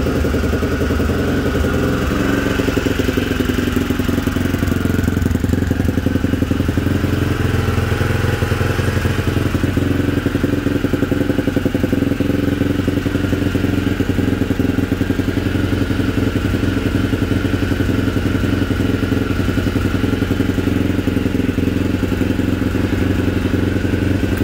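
1987 Honda XL250R's single-cylinder four-stroke engine idling steadily through a SuperTrapp exhaust just after a cold kick start. The idle speed sits a little high and needs adjusting.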